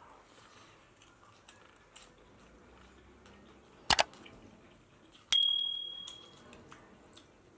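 Tableware being handled during a meal: a sharp double click about four seconds in, then a single clear ringing clink, as of metal struck against a dish, that fades over about a second.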